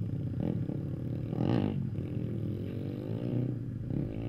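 Pit bike engines revving and running as the bikes ride off. The pitch rises and falls with the throttle, with a sharper rev about a second and a half in.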